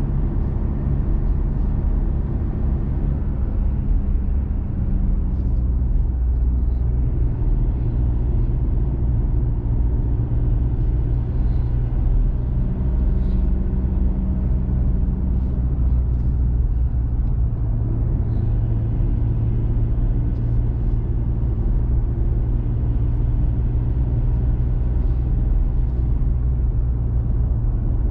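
Diesel pickup truck driving up a mountain road: a steady engine drone with road noise, the engine note shifting a couple of times, around 4 and 18 seconds in.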